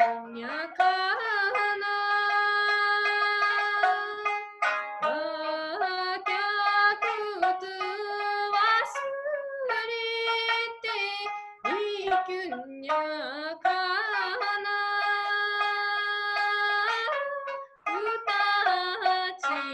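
A woman singing in long held notes, accompanied by plucked notes on a sanshin, the Okinawan three-stringed lute.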